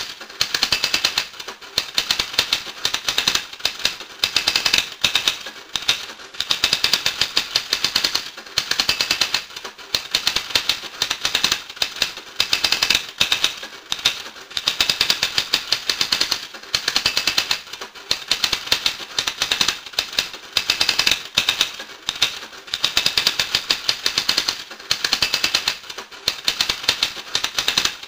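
Rapid, dry clicking in dense runs of about a second and a half, repeating roughly every two seconds with short breaks between.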